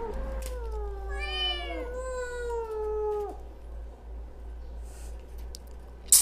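Several kittens meowing, long overlapping calls that fall in pitch, for about three seconds before they stop. Near the end, one sharp loud knock.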